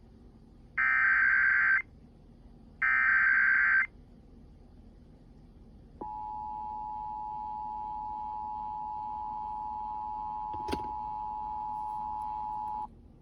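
Emergency Alert System broadcast signal: the last two of three one-second data bursts of the digital SAME header, a harsh warbling screech. After a short gap comes the steady dual-tone EAS attention signal, held for about seven seconds with a single click near its end. Together they announce an incoming severe thunderstorm warning.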